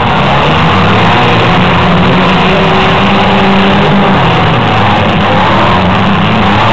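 Several demolition derby cars' engines running and revving at once, loud and steady, their pitch rising and falling.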